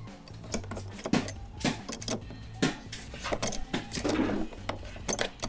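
Metal mounting hardware and tools clinking and knocking in a string of sharp, irregular clicks while the gun-mount brackets are bolted on, with a short scraping rattle about four seconds in.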